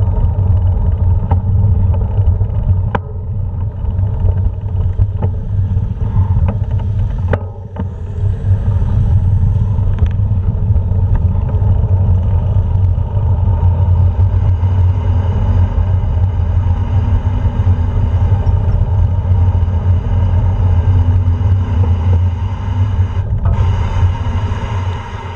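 Steady low rumble of a bicycle rolling over cobblestones, shaken through a handlebar-mounted action camera, with scattered knocks from bumps. It dips briefly about seven seconds in.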